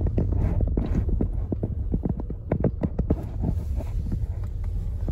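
Car driving over a rough dirt trail, heard from inside the cabin: a steady deep tyre-and-road rumble with many irregular knocks and clicks as the car goes over bumps and ruts.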